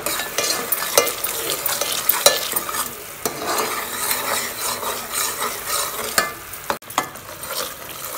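Metal ladle stirring a pot of boiling sugar syrup, clicking and scraping against the pot's metal sides over the steady hiss of the bubbling syrup. The syrup is being stirred so that the sugar dissolves.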